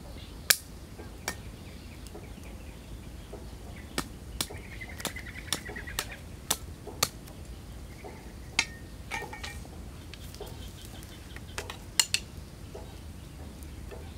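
Knife blade chopping and shaving a wooden stick: about a dozen sharp cracks at uneven intervals, some close together in pairs.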